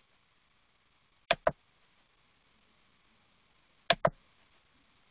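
Two computer mouse clicks about two and a half seconds apart, each a pair of sharp clicks close together, over faint room hiss.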